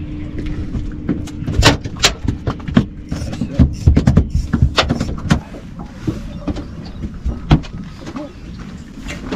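Knocks and clatter of fishing gear being handled and people moving about on the deck of a small fibreglass boat, over a low rumble. A steady low hum stops about three seconds in.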